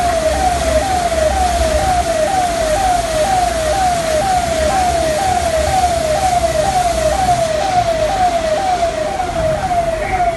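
Emergency vehicle siren sounding in a fast repeating pattern, each sweep falling in pitch, about two sweeps a second. There is a low engine rumble and traffic noise beneath it.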